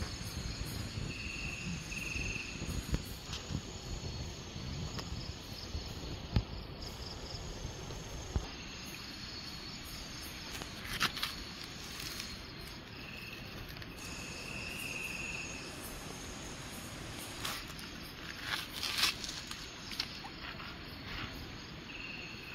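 Night insects and crickets calling steadily, with a higher chirping trill that comes and goes. Two sharp knocks in the first half, then water splashing in short spells in a plastic basin as a fish is rinsed by hand.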